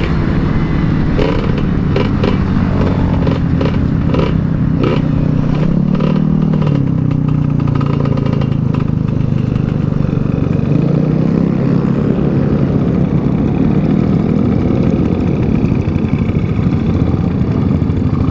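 Motorcycle engine running under way, its pitch rising and falling as the revs swell about six seconds in and again around eleven seconds. Rapid clattering knocks sound in the first few seconds.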